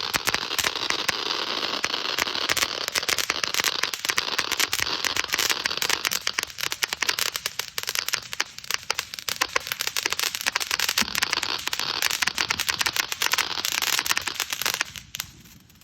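TNT Atomic Salsa firework fountain burning: a steady hiss packed with rapid crackling, which dies away suddenly about fifteen seconds in.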